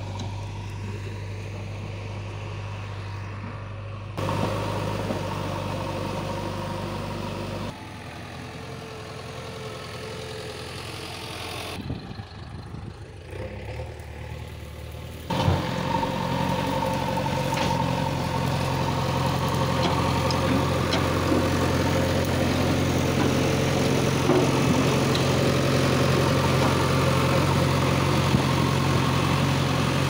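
JCB 3DX backhoe loader's diesel engine running steadily as the machine drives and works its front loader bucket. The sound jumps in level a few times and is louder and closer from about halfway through.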